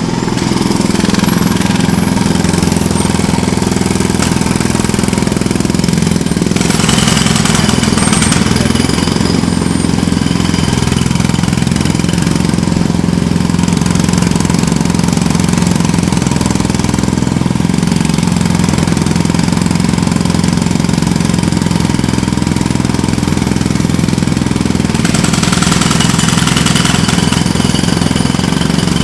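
Jackhammer hammering without a break, a fast steady chatter of blows over a low drone. The blows turn brighter and harsher for a few seconds about a quarter of the way in and again near the end.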